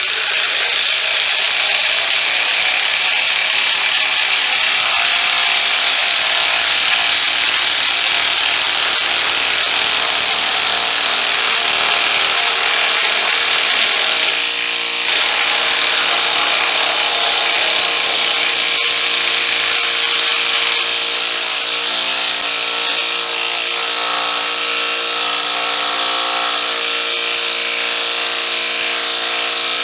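DeWalt 20V brushless 1/2-inch cordless impact wrench hammering without a break as it drives a 10-inch lag bolt into a wooden beam under heavy load. Its rattle changes character about halfway through and again near two-thirds of the way in.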